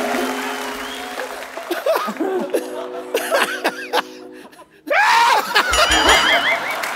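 A woman's exaggerated throat-clearing and warbling vocal noises, a mock singer's warm-up, over a held musical chord. Audience laughter breaks out loudly about five seconds in.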